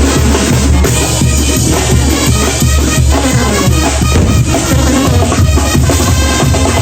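Two Mexican brass bandas playing together: a heavy bass line under a steady beat of bass drum and snare, with the wind section over it.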